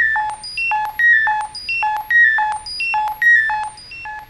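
Eurorack synth voice: an oscillator driving the RF NOMAD shortwave receiver module's tuning input, so the receiver works as a wave shaper. It plays a fast, looping run of short, bright, beeping notes from a step sequencer. The run repeats about once a second and is dry, with no echo or reverb.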